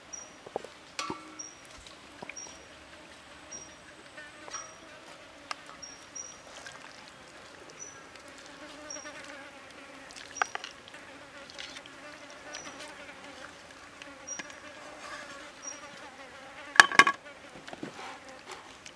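Hands mixing sliced raw chicken with seasoning in a bowl: soft handling noises and scattered knocks of plate and bowl, the loudest a cluster of knocks near the end. Under it, a steady faint buzz and a short high chirp repeating about once a second.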